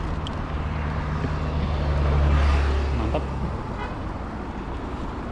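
A motor vehicle's engine passing: a low drone that grows louder to about two seconds in, then fades away by about three and a half seconds.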